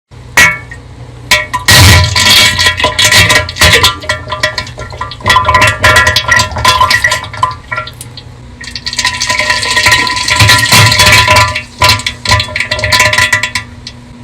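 Bass-boosted diarrhea sound effect: a long run of irregular, sputtering fart-like bursts, very loud with heavy booming bass. It eases off for a moment about halfway through, then picks up again.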